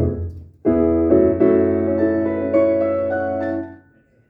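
Keyboard playing held chords through the PA: a short chord at the start, then a longer steady chord with notes shifting on top that cuts off sharply near the end.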